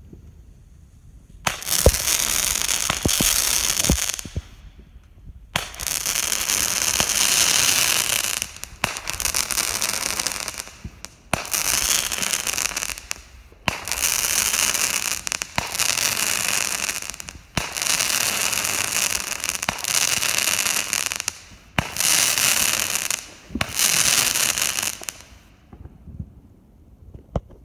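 Fireworks going off: a few sharp pops about two seconds in, then a long run of loud hissing, crackling spells, each one to three seconds long with short breaks between, stopping about twenty-five seconds in.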